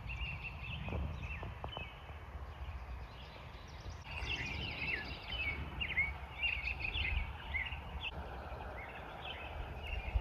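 Outdoor evening ambience: many short, high chirping calls, thickest in the middle, over a steady low rumble.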